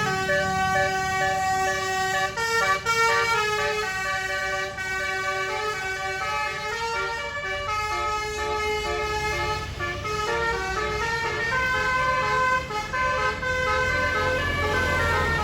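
Bus basuri horn, a multi-trumpet musical air horn, playing a quick tune of changing notes over the bus engine running.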